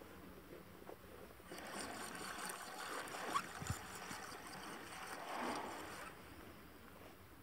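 Faint water sloshing around a small boat, coming in soft swells, with one sharp knock about halfway through.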